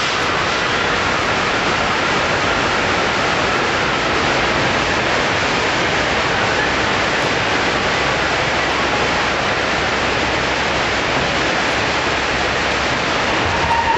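Steady, loud rushing of water pouring through the Earthquake: The Big One subway-station set, the attraction's flood effect.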